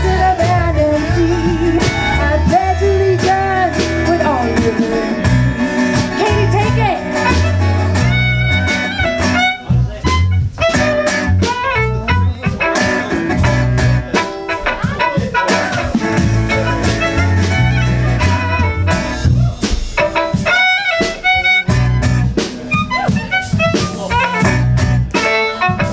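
Live folk-roots band playing an upbeat song on electric bass, acoustic guitar, violin and percussion, with a pulsing bass line under the violin and guitar.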